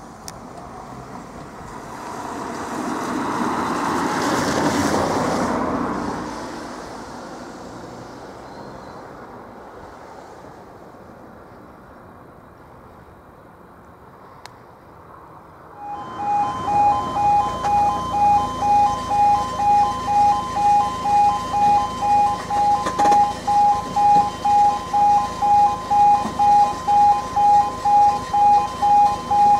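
A road vehicle passes in the first few seconds, swelling and fading. About sixteen seconds in, the level crossing's two E2S alarms start and pulse about twice a second in a two-tone warning, loud and steady: the half-barrier crossing activating for an approaching train.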